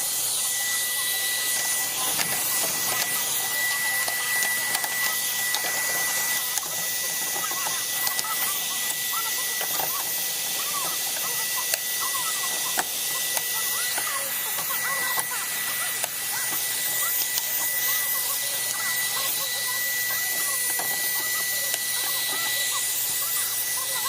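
A steady, loud hiss with an even high whine held throughout, and a few faint clicks.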